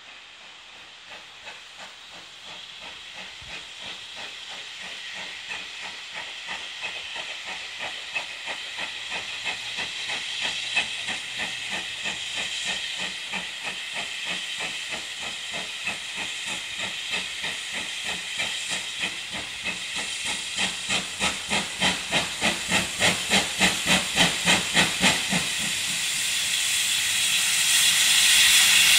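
GWR Large Prairie 2-6-2 tank steam locomotive pulling away with a train, its exhaust chuffing in an even beat over a steady hiss of steam, growing steadily louder as it approaches. Near the end the chuffs run about four a second, then a loud, even hiss of steam takes over as the engine comes close.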